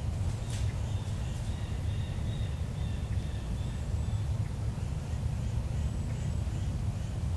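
Steady low rumble in the woods, with a bird calling in a run of short high notes from about a second in.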